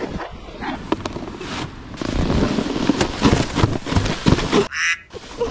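Snowboards scraping and crunching over hard-packed snow, a rough crackling noise with scattered clicks that grows louder about two seconds in and drops away briefly near the end.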